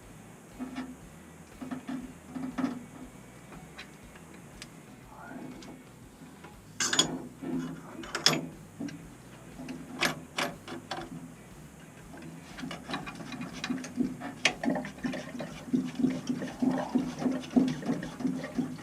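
Clinks and knocks of metal fittings and hand tools being worked on a boiler's circulator pump, with a quicker run of small clicks and rattles in the last few seconds as the feed fitting is tightened.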